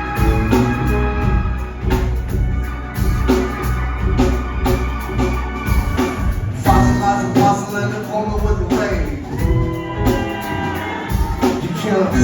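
Live rock band playing an instrumental stretch between sung lines: a steady drum beat over bass, with keyboard notes coming in about halfway through as the bass line breaks up.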